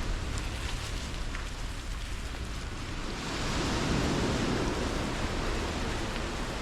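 Heavy rain with beach surf behind it: a steady rushing noise that swells louder for a second or two about halfway through.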